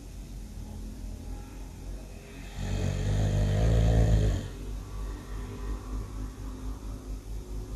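A person snoring really loud: one long, low snore starting about two and a half seconds in and lasting nearly two seconds, with quieter low breathing sounds before and after it.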